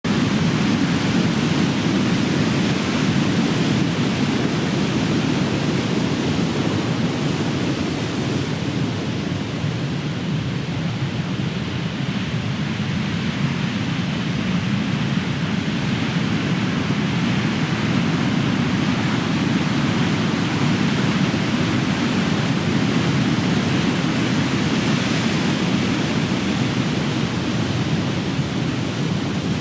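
Big ocean waves crashing in a continuous rush of surf, swelling and easing slowly.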